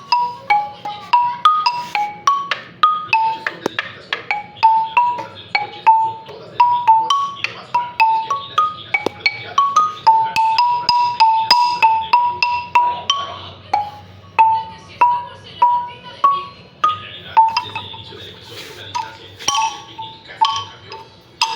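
Marimba played with mallets: a melody of single struck wooden-bar notes in a fairly high register, a few a second, each ringing briefly. About halfway through, the notes come more closely together.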